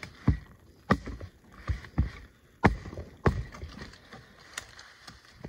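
A series of irregular knocks and thumps, about six in the first three and a half seconds, then a couple of fainter ones.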